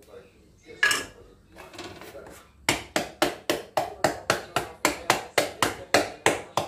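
Aluminium baking pan filled with brownie batter being tapped in a steady run of sharp knocks, about three or four a second, starting about three seconds in, to knock the air bubbles out of the batter. A single thump and a brief scrape come before the tapping.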